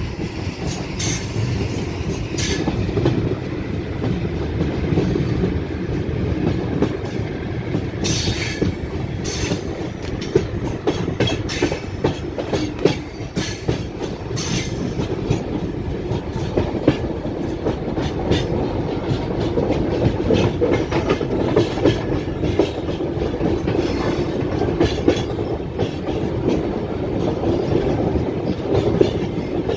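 Passenger train running steadily, heard from inside the carriage: a constant rumble of wheels on rails with a sharp clack now and then.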